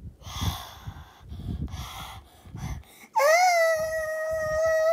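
A person voicing a puppet lets out a long, high-pitched scream, held on one pitch and dropping slightly as it ends. It starts about three seconds in, after a stretch of rustling and soft low thumps.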